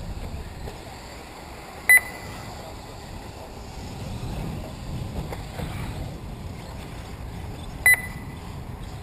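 Two short electronic beeps about six seconds apart from an RC race lap-timing system, each a single clear pitch, over steady low wind noise.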